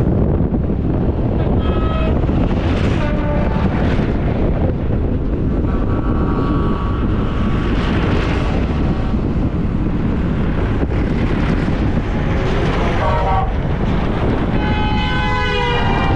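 Horns of a passing tractor convoy honking, several blasts in turn, one held for over a second and others dropping in pitch as the vehicles go by. Under them, a steady low rumble of road and wind noise on the microphone from the moving vehicle.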